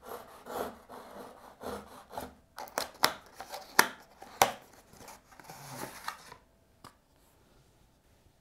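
A knife blade slicing the tape seals on a cardboard retail box, heard as several scraping strokes. These are followed by a few sharp clicks and snaps of card as the box is opened, then rustling as the plastic tray is slid out.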